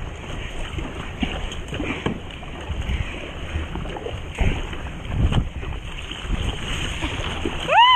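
Wind buffeting the microphone over water rushing and splashing along an NDK Romany LV sea kayak as it surfs wind waves, with a couple of louder surges partway through. Near the end, a short high voice exclamation that rises and falls in pitch.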